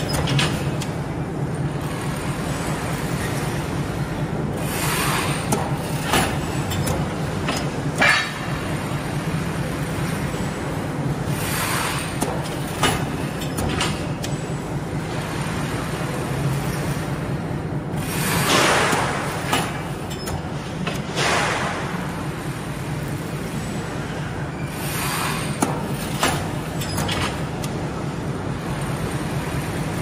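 Crimped wire mesh weaving machine running: a steady mechanical hum with a fast, even clatter, sharp clicks, and a louder hissing rush every few seconds.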